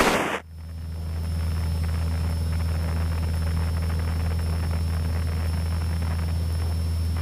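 Cessna 152's four-cylinder Lycoming O-235 engine running as a steady low drone inside the cockpit as the takeoff begins, its level swelling over the first second or so and then holding even.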